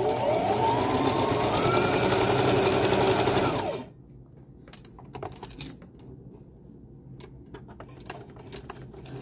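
Brother XL2600i electric sewing machine running a straight-stitch test seam. Its motor whine rises in pitch as it speeds up, then stops suddenly about four seconds in. A few faint clicks follow.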